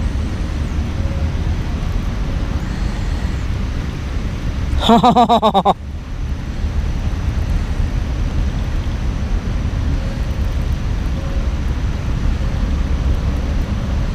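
Steady low outdoor rumble, with one short pitched call, about a second long, about five seconds in.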